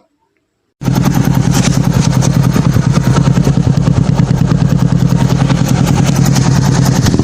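Bajaj motorcycle engine running loud and steady through an open exhaust with its dB killer removed, with a rapid, even pulsing beat. It cuts in abruptly about a second in.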